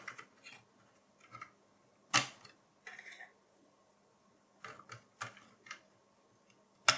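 DDR4 laptop-style (SO-DIMM) memory modules being handled and pressed into their motherboard slots, giving a few sharp plastic-and-metal clicks as they latch: a loud one about two seconds in and another near the end, with lighter taps and a brief rustle between.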